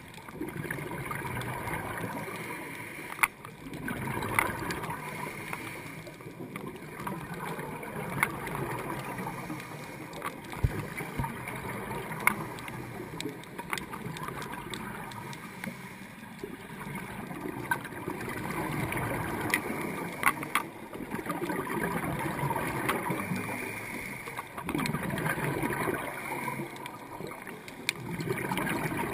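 Underwater sound of a scuba regulator: rushing, gurgling exhaled bubbles that swell and fade every few seconds, with a few sharp clicks.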